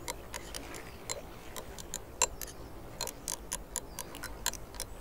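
A utensil ticking against a small glass bowl as an oil-and-vinegar dressing is whisked, about four light clicks a second, one louder near the middle.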